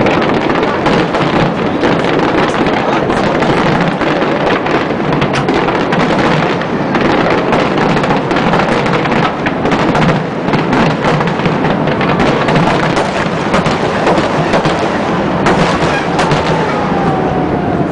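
Dense, continuous barrage of aerial fireworks: many bursts and crackles overlapping into an unbroken, loud rumble.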